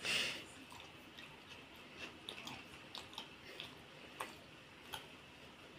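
A person chewing a mouthful of egg curry and rice, with faint wet mouth clicks now and then and a brief louder mouth sound right at the start.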